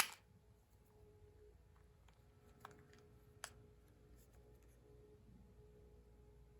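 A few quiet plastic clicks and knocks from a cordless phone handset being handled and looked over: one sharper click at the very start, two smaller ones around three seconds in, over a faint steady hum.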